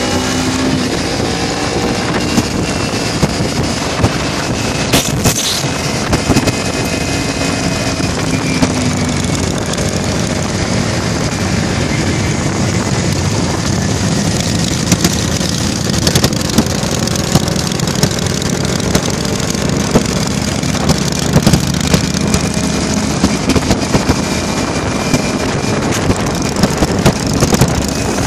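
Harley-Davidson V-twin motorcycle engines running at highway cruising speed, heard from on board one of the bikes, with wind buffeting the microphone. The engine pitch slides up and down in the first few seconds, and there is one short sharp knock about five seconds in.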